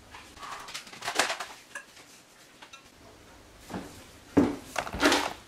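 Kitchen bowls clattering as a stainless steel Thermomix jug and a glass mixing bowl are handled: a scatter of knocks and scrapes about a second in, then a louder cluster of knocks near the end.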